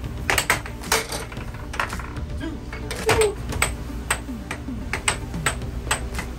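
Air hockey puck clacking off the mallets and the table's rails in a fast rally: a dozen or more sharp knocks at uneven spacing, loudest about three seconds in, over a steady low hum.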